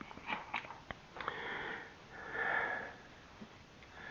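A few light clicks of plugs and wires being handled as the amplifier is unplugged, then two longer hissing swishes, the second one louder.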